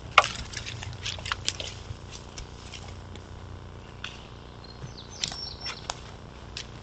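Outdoor ambience picked up by a trail camera: scattered short clicks and crackles over a low steady hum, with a brief high bird chirp a little after five seconds in.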